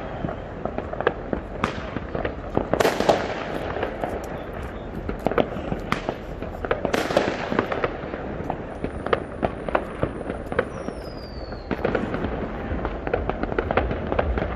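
Fireworks going off: a dense run of cracks and small bangs, with louder bangs about three and seven seconds in and a short falling whistle near eleven seconds.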